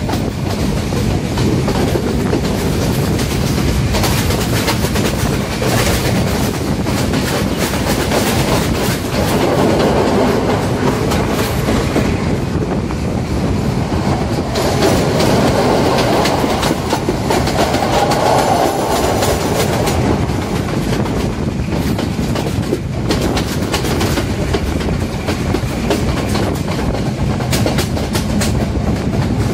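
Passenger train running along the track, heard at an open carriage window: a steady rumble with the carriage wheels clacking rapidly over the rails, stronger for a stretch in the middle.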